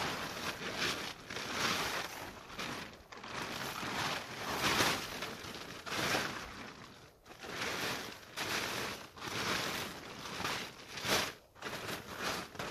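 Tarp and groundsheet rustling and crumpling as they are handled, with feet shifting on snow, in uneven swells and lulls.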